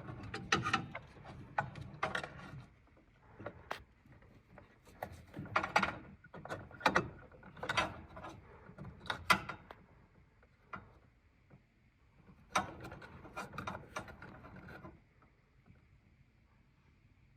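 Irregular clicks, knocks and short rattles of parts being handled, coming in clusters with quieter gaps between.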